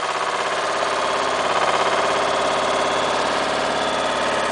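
AUSA 200 RMR minidumper's engine running steadily at raised revs, driving its backhoe arm as it digs.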